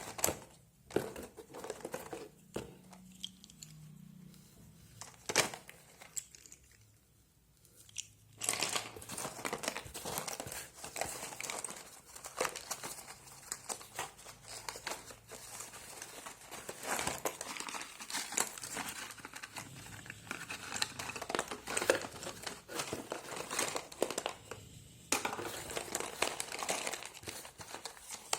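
Packaging of a slate pencil box crinkling and tearing as it is unwrapped. It starts as a few separate clicks and rustles, then becomes continuous crinkling from about eight seconds in.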